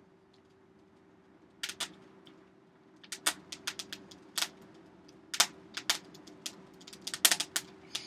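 Wood and paper kindling burning in a coal forge, crackling and popping in sharp, irregular snaps that come more often from about three seconds in, over the steady hum of the forge fan.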